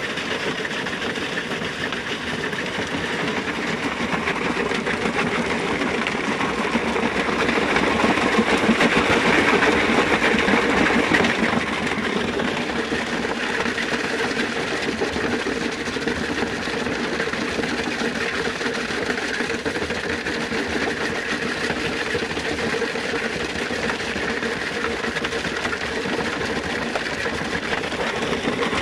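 Stone-crushing plant running: a Metso GP100 cone crusher and its conveyor belts carrying crushed gravel and boulders, making a steady mechanical din with a rattle. The noise grows louder for a few seconds around ten seconds in.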